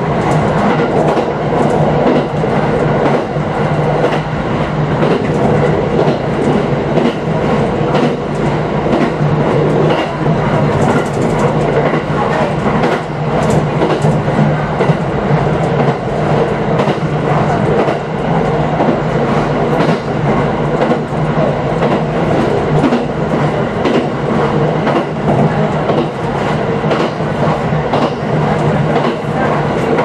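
JR East 701 series electric train running along the track, heard from inside the car: a steady running rumble with wheels clicking over rail joints again and again.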